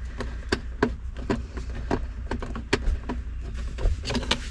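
Irregular small metallic clicks and clinks, about three a second, from hand tools and small parts being handled at a car's steering column, over a steady low hum.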